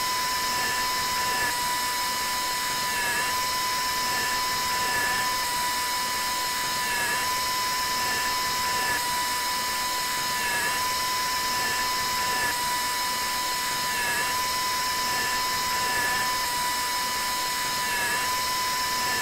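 Dental implant surgical handpiece turning an implant drill into a model jaw: a steady high whine whose pitch dips slightly about every two seconds as the drill meets resistance.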